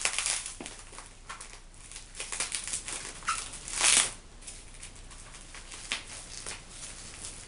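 Sellotape-wrapped parcel packaging being cut and pulled open by hand: irregular crinkling and tearing, with one louder tear about four seconds in.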